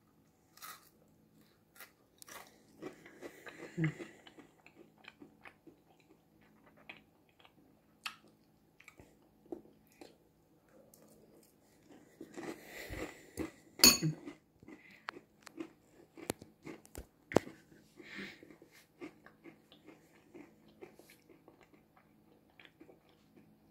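Someone chewing and crunching bites of a microwaved Rice Krispies treat, with a fork clicking and scraping against the bowl between bites. A few sharper clinks stand out about 14 and 17 seconds in.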